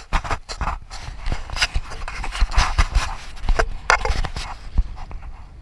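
Close rubbing and rustling right at the microphone of a body-worn action camera, with irregular knocks, as clothing and a hand-held phone brush against it.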